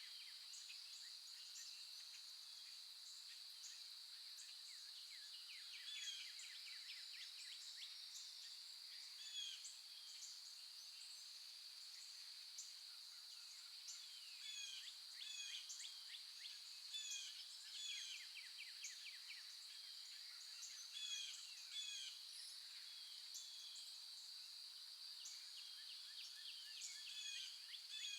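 Several small songbirds chirping and trilling in quick repeated notes, over a steady high-pitched insect drone.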